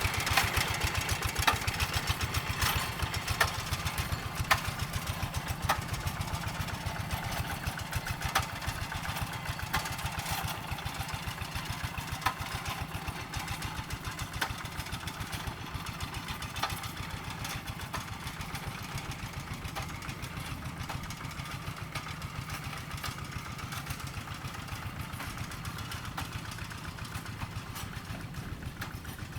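Hand tractor's single-cylinder diesel engine running steadily with a fast even chug. Sharp metallic clacks come every second or two through the first half.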